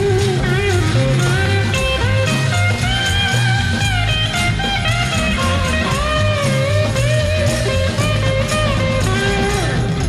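Rock band in an instrumental break: a lead electric guitar solo with bent, sliding notes over bass and drums, in a psychedelic blues-rock style.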